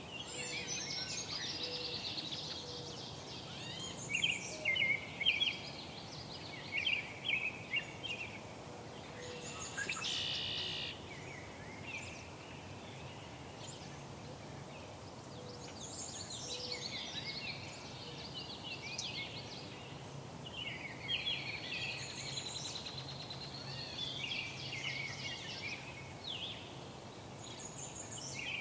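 Songbirds singing: long, jumbled, twittering song phrases of a few seconds each, repeating every few seconds, over a steady background hum.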